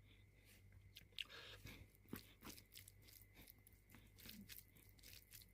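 A person chewing food close to the microphone, with many short, irregular crunches.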